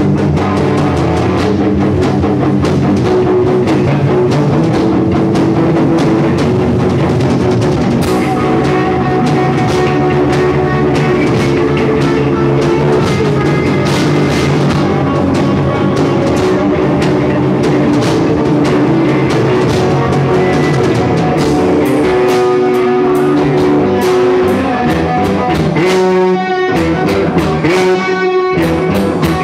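Rock music played loud on electric guitar and drum kit, with a steady driving beat; near the end the drums break off briefly twice while the guitar carries on.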